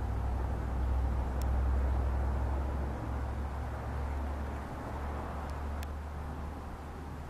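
NJ Transit ALP-45DP dual-mode locomotive approaching on its diesel engines: a steady low rumble that eases off slightly after about three seconds.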